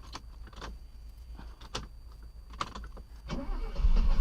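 Mercedes-Benz 250S engine being started on its newly fitted fuel pump: a low rumble with a few sharp clicks, then the engine is cranked and catches from about three and a half seconds in, growing loud.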